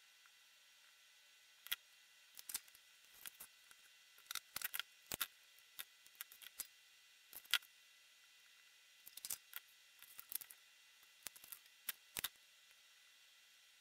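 Irregular small clicks and taps of hand tools and wires being handled on a workbench, over a faint steady hiss.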